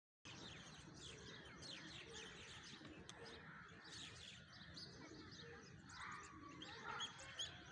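Faint chirping of small birds: many short, quick chirps overlapping, with a couple of slightly louder calls near the end.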